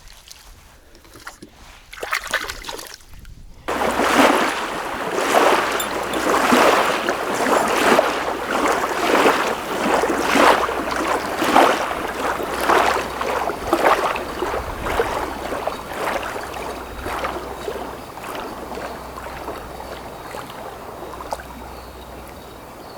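Repeated splashing of water, starting about four seconds in, with about one or two splashes a second that slowly fade over the last several seconds.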